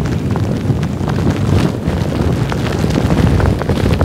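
Wind buffeting the microphone in a loud low rumble, with scattered crackles and pops from a wood fire burning in a fire-pit grill.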